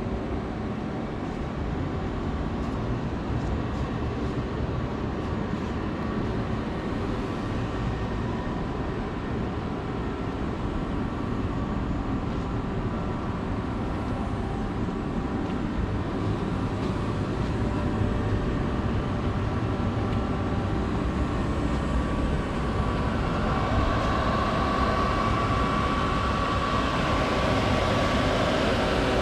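Large gantry CNC router running: a steady mechanical rumble with faint whining tones, growing louder from about three-quarters of the way through as a higher whine and a steady hum come in.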